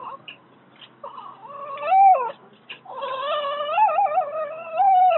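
Newborn baby, two minutes old, crying: a short wavering cry about a second in, then a long wail from about three seconds in.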